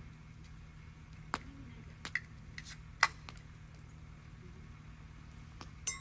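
Tableware being handled: a handful of sharp clinks and taps, a few of them ringing briefly like metal or glass, the last one near the end. A steady low hum runs underneath.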